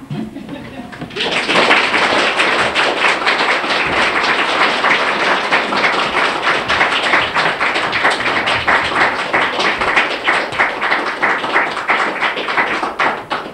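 Audience applauding: many hands clapping together, starting about a second in and fading out near the end.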